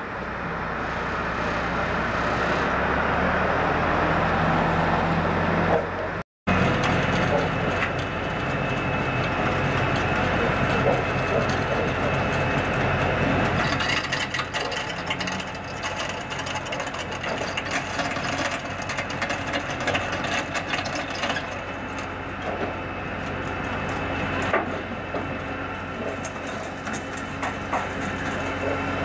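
Flatbed tow truck's engine running steadily while its winch draws a wrecked Honda Civic hatchback up the tilted bed, the car's smashed body and front end giving irregular knocks and cracks. The sound cuts out for a moment about six seconds in.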